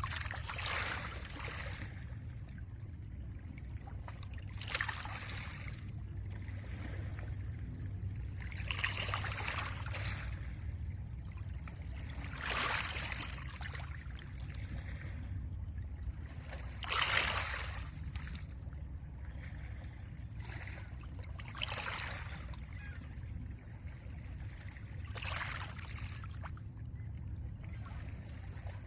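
Small lake waves washing onto a pebble shore, seven separate washes about four seconds apart over a steady low rumble.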